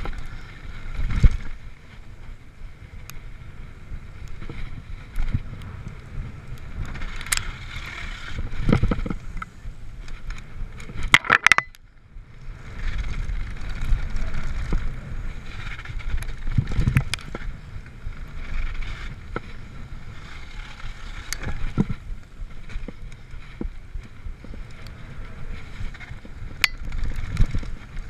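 Mountain bike riding fast down a dirt forest trail: a steady rumble of tyres over the ground and wind on the camera microphone, broken by sharp clacks and rattles from the bike over bumps, in a cluster shortly before halfway and again near the end.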